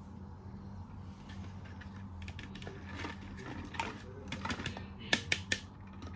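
Hard plastic toy animal figures clicking and tapping as they are handled, with a quick run of three sharp clicks near the end, over a steady low electrical hum.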